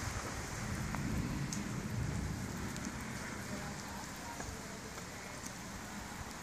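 Melting snow dripping and dropping from snow-laden conifer branches, a steady rain-like patter with scattered sharp ticks of drops landing. A low rumble, loudest at the start, fades over the first few seconds.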